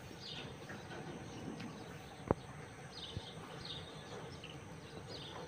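Small birds chirping faintly, short high chirps every second or so, over a faint steady high hiss. A single sharp click sounds a little over two seconds in.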